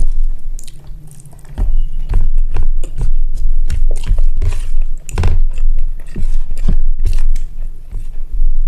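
Close-miked chewing of a mouthful of rice and egg curry: a quick, irregular run of wet smacks and clicks, briefly quieter about a second in.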